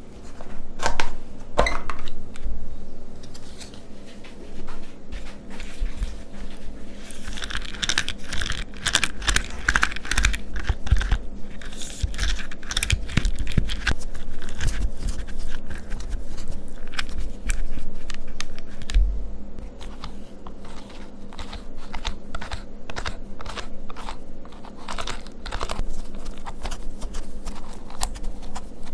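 A white plastic round ice-ball mold being handled: a run of light plastic clicks and knocks, with stretches of scraping as oil is dropped into its half-sphere cavities and brushed around with a silicone brush.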